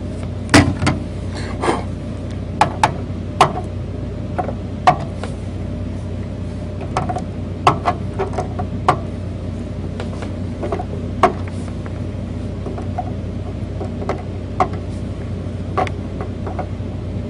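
Diagonal cutters snipping off the excess component leads on a printed circuit board. It is a series of sharp clicks at uneven intervals over a steady low hum.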